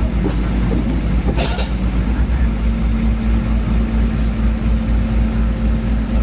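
Truck's diesel engine running steadily at raised speed, powering the hydraulics as the self-loader's rear ramps are lowered. A brief hiss about a second and a half in.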